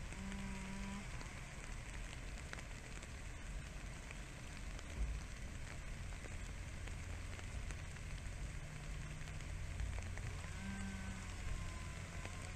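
Steady outdoor hiss over a low rumble, with two short, low pitched calls under a second long, one at the start and one near the end.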